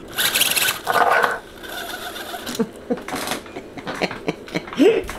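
Small electric motor and gearbox of an Axial SCX10 RC rock crawler whirring, loudest for about the first second and a half, with a shorter burst about three seconds in; the transmission slips in its housing instead of gripping.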